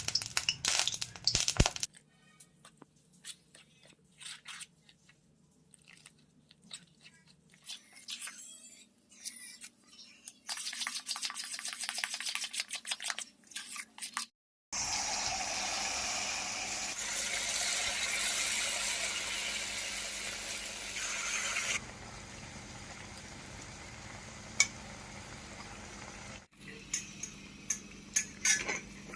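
Kitchen utensil sounds: scattered clicks and scraping strokes for the first half. Then a steady hiss runs for several seconds, drops abruptly to a quieter hiss, and a few sharp clicks come near the end.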